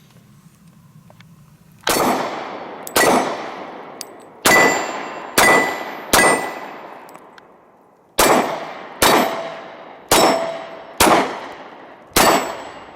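Ten pistol shots from a Glock 23 Gen 4 in .40 S&W, in two strings of five with a pause of about two seconds between them. Several shots are followed by the ringing of struck steel targets, each hit ringing at its own pitch.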